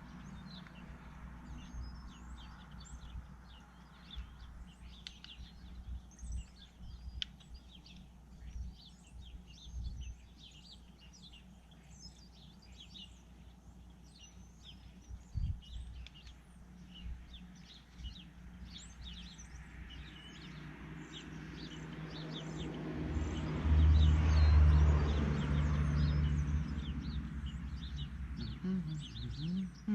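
Small birds chirping and tweeting throughout, with a few faint knocks. From about twenty seconds in, a low engine sound swells to its loudest a few seconds later and then fades away, like a motor vehicle passing by.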